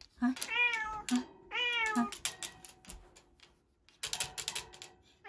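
Domestic cat meowing twice, two drawn-out calls about a second apart, followed by a scatter of light clicks.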